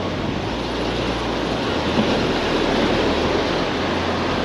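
Surf breaking on the beach and wind rumbling on the microphone: a steady rushing noise.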